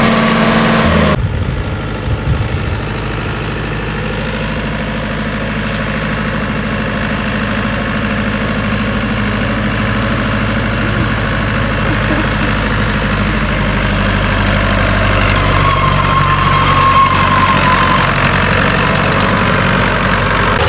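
New Holland 640 tractor's diesel engine running steadily while it drags a levelling blade across sandy ground, growing gradually louder toward the end. A louder engine sound in the first second cuts off abruptly.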